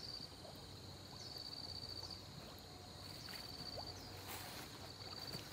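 Faint lapping and sloshing of pond water around a wader standing chest-deep. Over it an insect trills, high and steady, in long stretches with short breaks, and there are a couple of faint splashes about four seconds in.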